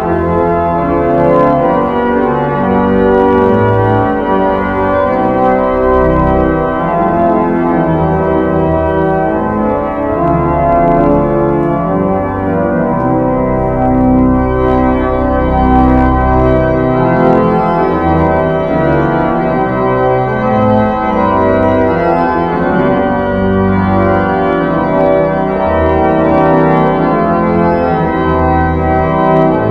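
Church pipe organ playing loud, held chords that change slowly, over deep bass notes.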